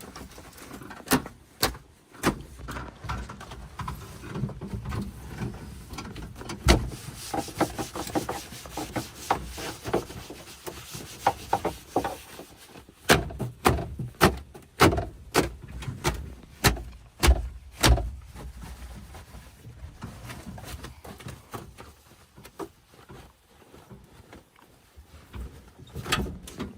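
JCB 3DX backhoe loader at work: its engine running low under a series of sharp, irregular knocks and clanks from the bucket and arm, with some squeals and creaks. The knocks come thickest about halfway through, roughly one a second.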